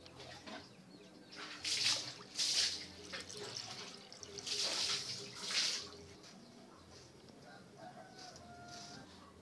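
Water poured from a plastic scoop into an aluminium cooking pot, splashing in two bursts of about a second each.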